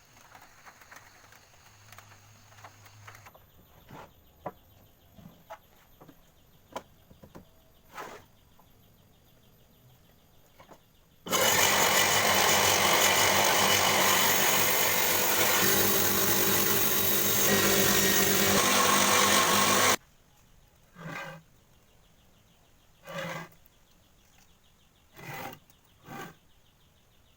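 Home-built table saw running loudly for about eight seconds, starting and stopping abruptly, after a stretch of light clicks and knocks. Four short sounds follow once it stops.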